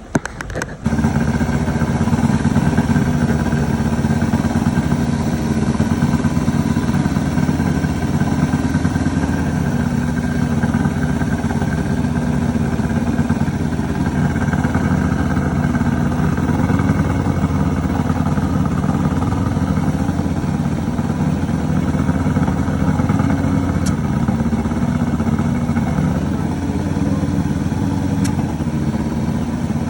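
A 150 hp Johnson outboard motor starts up about a second in and then runs steadily at idle.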